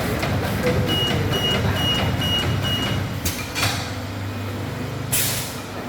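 Industrial machinery in a workshop: a warning beeper gives five short high beeps, about two a second, then air hisses out in sharp bursts over a low steady hum, the longest burst near the end.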